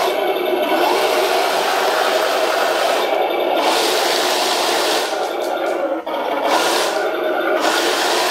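Radio-controlled full-metal model tanks driving across a wooden floor: electric drive motors and metal gearboxes whirring steadily as the metal tracks run over the boards, with a brief dip about six seconds in.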